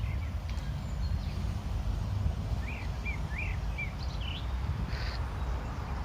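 Steady low rumble outdoors, with a songbird chirping: four short chirps in quick succession about halfway through, then a couple more shortly after.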